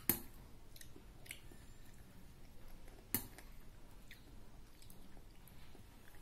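A metal spoon clinking sharply against a small ceramic bowl twice, once at the start and again about three seconds in, with fainter spoon ticks and a child chewing in between.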